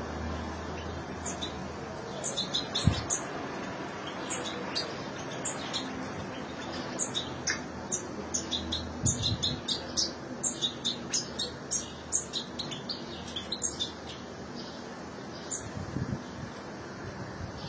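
European goldfinches chirping: many short, high calls scattered throughout, thickest in the middle, over a steady low background hum. A single low thump about three seconds in.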